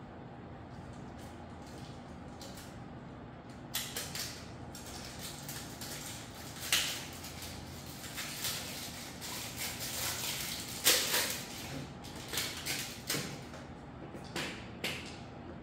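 Irregular clicks, knocks and scraping of tools and bike parts being handled during assembly of a folding electric bike, starting a few seconds in, with two sharper knocks standing out, over a faint steady hum.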